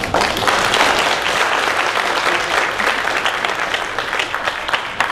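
Audience applauding: many people clapping at once at the end of a song, starting sharply and easing off slightly near the end.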